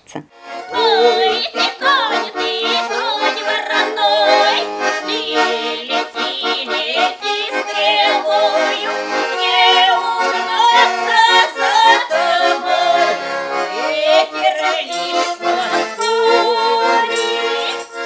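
Two women singing a song together with vibrato, accompanied by a Russian garmon (button accordion).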